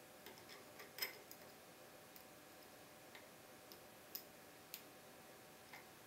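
Faint, irregular metallic clicks of a lock pick and tension wrench working the pins inside a Keso 2000 security cylinder, the loudest about a second in and a couple more near the end.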